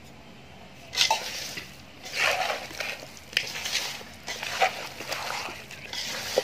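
A bare hand mixing raw chicken pieces with olive oil, spice powders, onion and tomato in a metal pot. A run of irregular wet mixing sounds begins about a second in.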